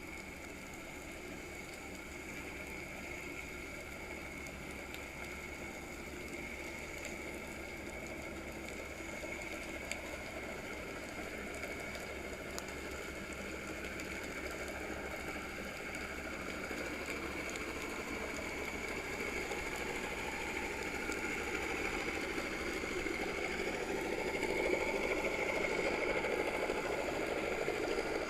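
Boat motor heard underwater: a steady engine hum that grows slowly louder, as a boat comes nearer, with faint scattered ticks.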